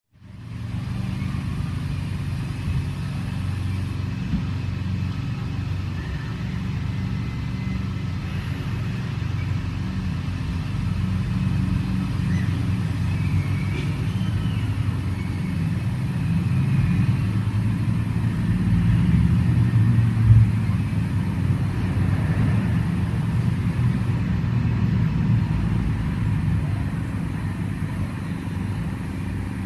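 Steady low outdoor rumble that swells a little about two-thirds of the way through, with one brief louder surge.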